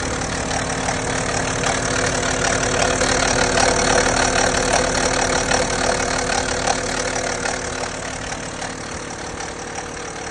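BMW N57 straight-six diesel engine idling with a rattle from the rear-mounted timing chains that carries through the top of the cylinder head: a sign of play in the chains, a warning that they are due for replacement.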